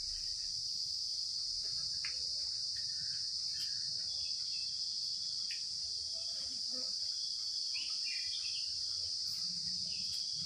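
A steady, high-pitched insect chorus, with faint scattered clicks and a few short chirps about eight seconds in.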